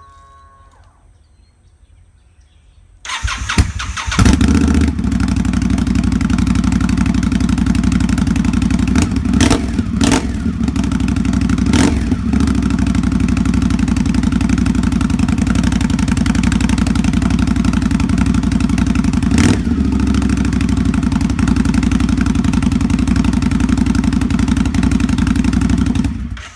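Indian Scout's liquid-cooled V-twin engine, breathing through aftermarket J&P Cycles slip-on mufflers in place of the stock exhaust, cranked on the starter and catching about three seconds in, then idling pretty loud with a few short throttle blips, and switched off just before the end.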